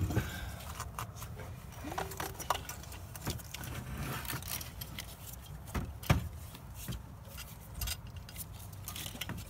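Scattered light metallic clinks, knocks and rattles as the metal intake pipe of a Ford 7.3L Power Stroke diesel is worked loose and lifted out of the engine bay by hand.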